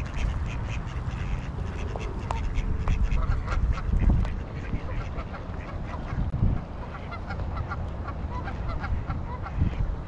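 A flock of mallard ducks quacking and chattering, many short calls overlapping throughout, with low rumbles about four and six and a half seconds in.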